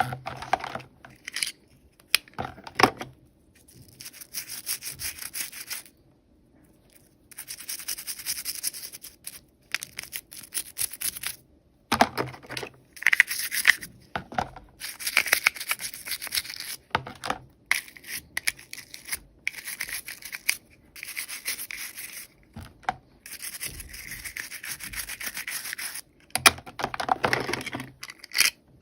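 Toy packaging being handled and opened by hand: repeated scratching and rubbing strokes with a few sharp clicks, in short stop-start runs.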